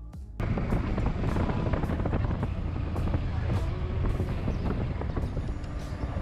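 Riding sound of a Honda X-Blade motorcycle's single-cylinder engine under way, mixed with wind rumbling on the action camera's microphone. It cuts in abruptly about half a second in.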